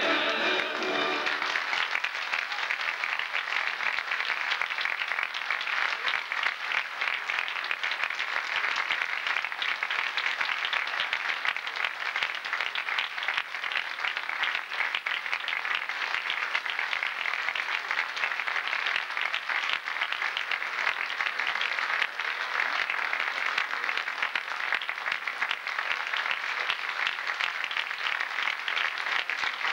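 Theatre audience applauding steadily, a dense even clapping with no pause. The last sung notes of the ensemble end about a second in.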